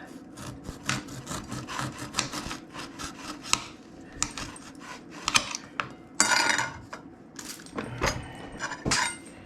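Knife cutting whole limes with the peel on: a run of short slicing strokes and taps, several a second, with a longer scraping stroke a little past the halfway point.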